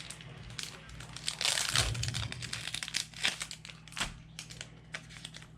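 Crinkling plastic as Pokémon trading cards and their packaging are handled, with irregular small clicks and a denser stretch of rustling about a second and a half in.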